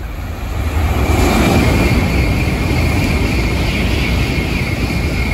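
Shinkansen bullet train passing through a station at speed without stopping: a rushing roar of air and wheels that swells about a second in and holds loud, with a thin steady high whine over it.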